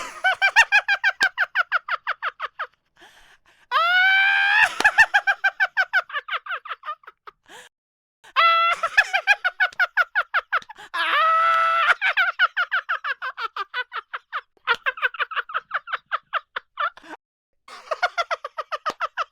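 A man's high-pitched laughter in repeated fits, each a rapid run of about seven ha-pulses a second, broken by short pauses for breath.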